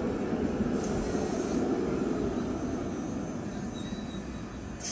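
Tram running along street rails, a steady rumble that is strongest in the first three seconds and then eases as it moves off, with a short hiss about a second in and another near the end.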